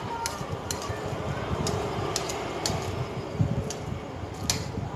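Someone chewing a mouthful of noodles, with about ten light clicks and taps of a metal fork against a plate scattered through it.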